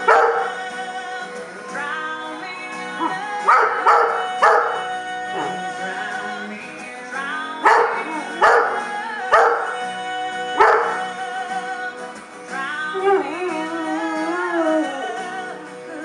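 Giant Schnoodle barking and howling along to a recorded country song playing from a phone on a speaker dock. The dog's voice comes in short loud bursts over the music several times, with a longer wavering howl a little after the middle.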